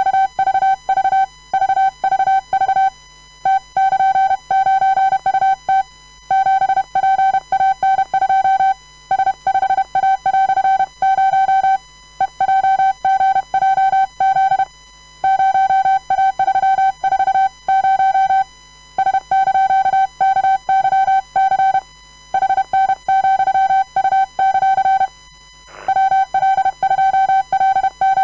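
Hand-sent Morse code: a single steady mid-pitched tone keyed on and off in quick dots and dashes at a comfortable speed, in groups with short pauses between them, spelling random letters, numbers and punctuation.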